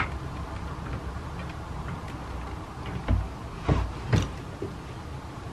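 Three soft knocks and thumps with light clicks, about half a second apart, over a low steady hum, as handbags are lifted off door hooks and moved.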